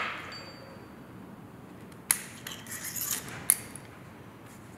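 Steel gearbox shaft and gears clinking and knocking against a steel welding table. There is a sharp clank about two seconds in, a few lighter clinks, and another sharp knock about three and a half seconds in.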